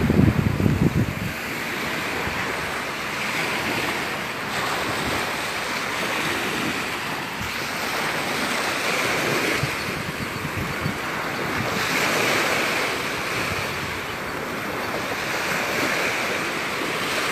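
Small Gulf of Mexico surf breaking and washing up on a sandy beach, swelling and fading every few seconds. A gust of wind buffets the microphone with a low rumble in the first second.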